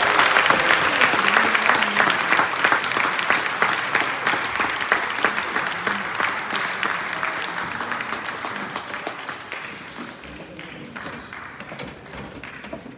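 Audience applauding, loudest at the start and slowly dying away over about twelve seconds, with a few voices faintly underneath.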